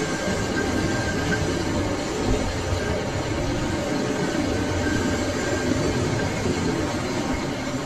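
Large lathe running, spinning a forage harvester rotor with its blades whirling. It makes a loud, steady mechanical noise as the rotor shaft is turned to bearing size.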